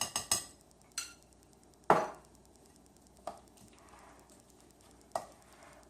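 A utensil clinking and knocking against a bowl of salsa: a quick run of ringing clinks at the start, a single knock about a second in, a louder thud about two seconds in, then a few lighter knocks.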